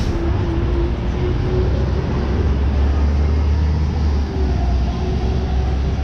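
Street traffic on a busy city road: a steady wash of passing vehicles with a heavy low rumble, strongest through the first half and easing after about four seconds.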